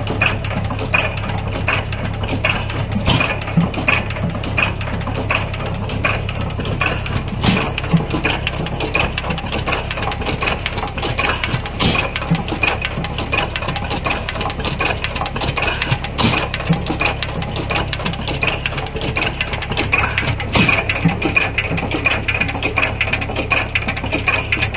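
12 hp Hercules stationary engine running, with a constant clatter of its valve gear and side-shaft gearing over a low hum. A heavier knock comes about every four seconds.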